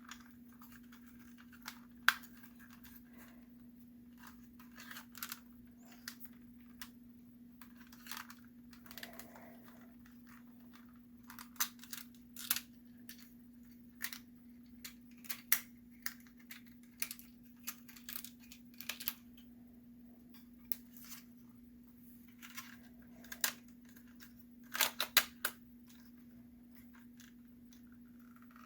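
Plastic parts of a G1 Sky Lynx Transformers toy clicking and snapping as its space shuttle is transformed by hand into its bird mode: irregular sharp clicks and ticks, some louder snaps, over a steady low hum.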